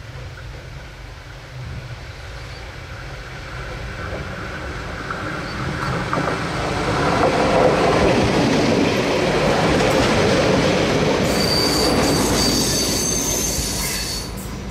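Silver Fern diesel railcar approaching and passing close by: engine and wheels building to a loud rumble, then high-pitched wheel squeal from the curve as the rear of the railcar goes by, fading out near the end.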